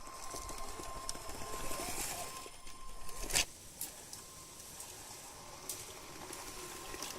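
Vehicle running with a low rumble and a steady thin whine over rough, crackly noise, and one sharp knock about three and a half seconds in.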